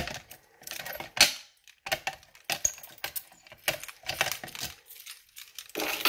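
A ring of keys jingling and clicking against a Simplex fire alarm pull station while a key is worked in its reset lock, in irregular bursts.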